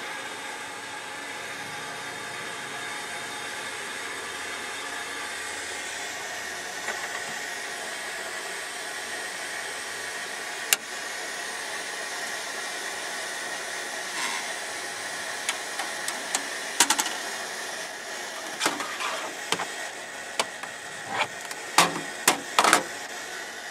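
Steady hiss with faint humming tones from an audio system's speakers, broken from about halfway by scattered sharp clicks and pops that come thicker near the end.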